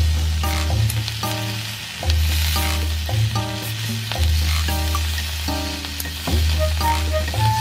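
Sausages sizzling in a small cast-iron skillet, a steady hiss of frying fat, as they are turned with tongs. Background music with a repeating bassline plays under it.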